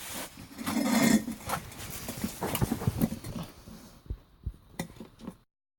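Clunks, scrapes and clicks of a quad bike's steel wheel rim being handled and set down on the floor while a tyre valve is worked through it with pliers. A louder scraping comes about a second in, and the sound cuts out suddenly near the end.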